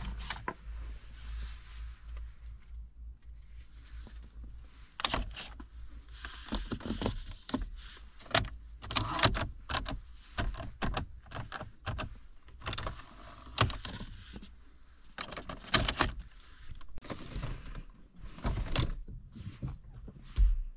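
Repeated sharp clicks of dashboard and console switches and buttons being pressed in an Audi A4 B6's cabin, with a low steady hum underneath.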